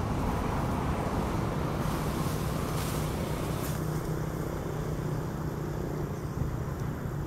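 A low, steady engine-like hum under a constant wash of outdoor background noise.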